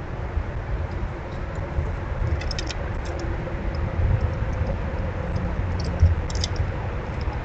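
Steady low outdoor rumble, like distant traffic or wind on the microphone, with two brief clusters of short, high chirps or clicks, about two and a half and six seconds in, and a soft thump just before the second.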